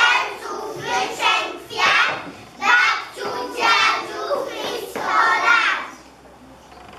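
A group of young children singing together in short phrases, stopping about six seconds in.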